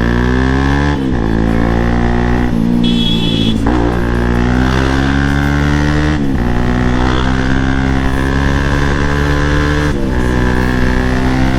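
Bajaj Pulsar NS200's single-cylinder engine under way, its pitch climbing in each gear and dropping sharply at several gear changes as the bike pulls through traffic. A short high beep, like a horn, sounds about three seconds in.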